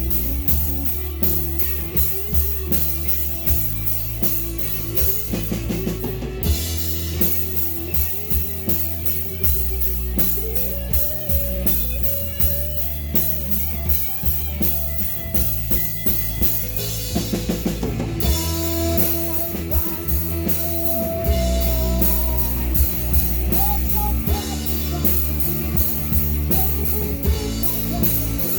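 Live rock band playing a song: a drum kit beating steadily over bass and guitar.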